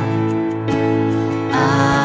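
Christian worship music with long held notes. A new phrase comes in near the end.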